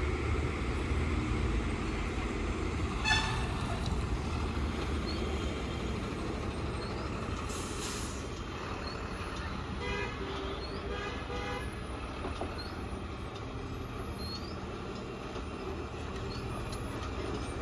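Heavy-loaded multi-axle lorry's diesel engine running steadily as it pulls round a hairpin bend, a low drone, with a short horn toot about three seconds in and a brief hiss near the middle.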